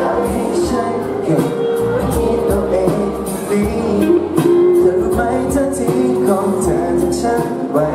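A male singer singing live into a handheld microphone over a pop backing track.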